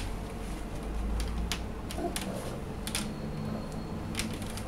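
Irregular light clicks and knocks from a wooden crib's rails as a toddler grips and climbs over them, a few sharp ticks at uneven intervals over a low steady hum.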